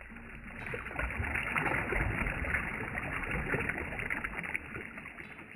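Lake water lapping and washing over shoreline rocks with a splashy trickle. It swells about a second in and eases near the end.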